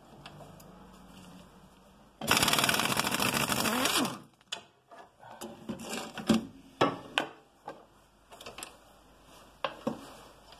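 Impact wrench hammering for about two seconds as it undoes the 16 mm nut on a rusted control-arm bushing bolt, followed by a series of short metallic clicks and knocks.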